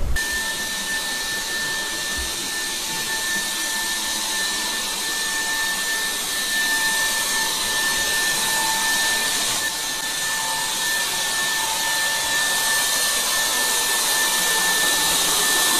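Electric disinfectant fogger running steadily: a constant blower hiss with a steady high-pitched motor whine.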